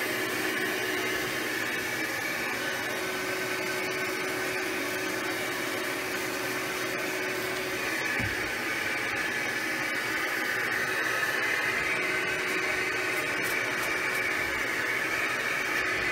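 Rug Doctor shampooer's vacuum motor running steadily with a whooshing hiss as the upholstery tool is worked over a cloth seat, its tone shifting slightly about eight seconds in.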